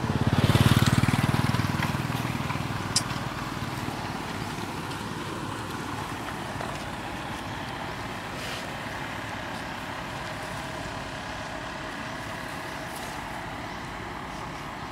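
A motor vehicle passing on the road, loudest about a second in and fading away over the next few seconds, followed by steady outdoor background noise. A single sharp click comes about three seconds in.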